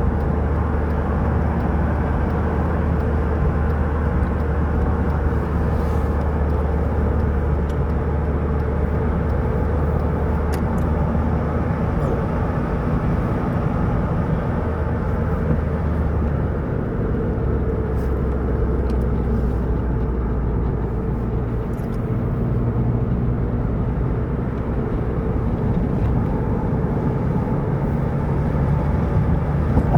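Steady low drone of a road vehicle on the move, engine and tyre noise together. The pitch of the low drone shifts slightly about halfway through.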